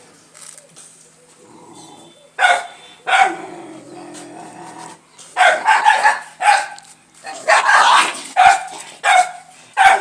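A dog barking: two single barks a couple of seconds in, then a fast run of repeated barks through the second half.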